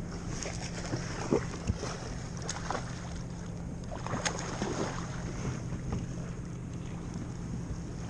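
Water splashing irregularly over a steady low hum, with a few sharper splashes in the first half.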